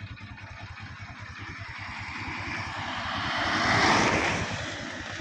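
A car passing close by on asphalt: engine and tyre noise swell to a peak about four seconds in, then fade, over a steady low rumble.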